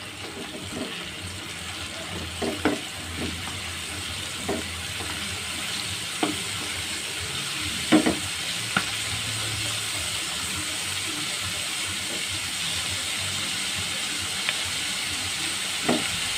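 Squid tentacles and fins deep-frying in hot oil in a wok: a steady sizzle that grows a little louder, with a metal spatula stirring and knocking against the pan about eight times.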